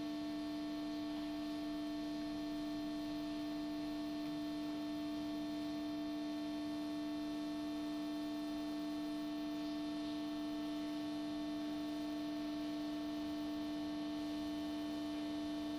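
Steady, unchanging hum with one strong mid-pitched tone and a ladder of fainter overtones above it.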